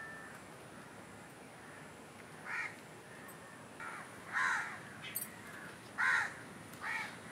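A crow cawing repeatedly: short harsh caws start about two and a half seconds in and come roughly a second apart, over a quiet background.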